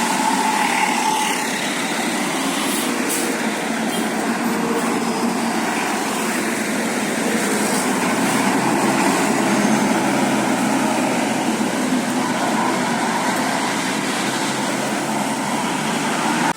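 Road traffic noise from passing buses and other vehicles: a steady mix of engine rumble and tyre hiss, a little louder through the middle.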